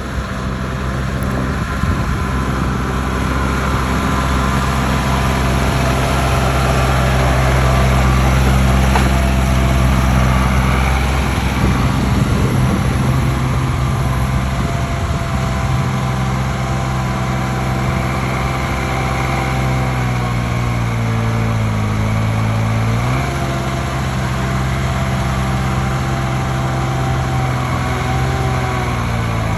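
Heavy stump-removal machine's engine running steadily; its speed sags for about three seconds around twenty seconds in, then picks back up.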